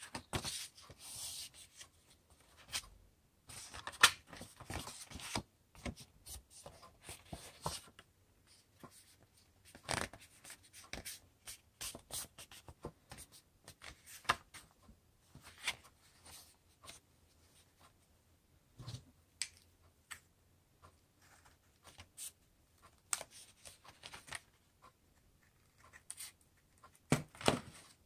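A sheet of paper being folded and creased by hand on a tabletop: scattered short rustles, slides and presses. Near the end, scissors snip through the folded paper in a few quick, louder cuts.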